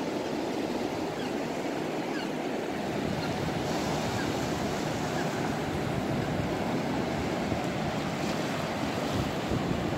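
Ocean surf washing up a sandy beach, a steady rush of breaking waves that cuts off abruptly at the end.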